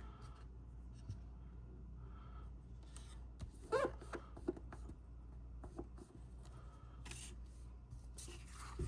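Faint paper handling: small cardstock pieces rustling, rubbing and tapping as adhesive is put on them, over a steady low hum, with a brief pitched squeak about four seconds in.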